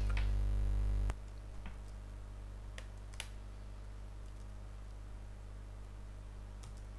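Steady electrical hum from the recording setup, loud for about the first second and then dropping to a lower level, with a few scattered sharp clicks, typical of a computer mouse or keyboard being used.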